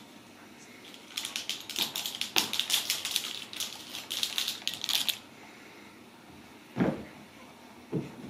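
Rapid clicking and rattling, like fast typing, from kittens scrambling and pouncing at a wand toy with a dangling ball. It stops suddenly about five seconds in, and is followed by two soft thuds.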